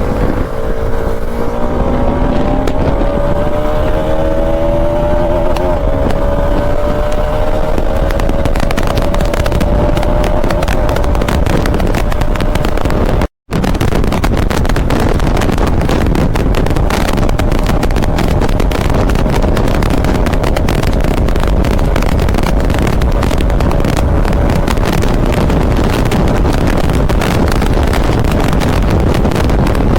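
Motorcycle running on the road with heavy wind rushing on the microphone; the engine note rises over the first several seconds as it accelerates, then settles into a steady cruise. The sound cuts out for an instant about thirteen seconds in.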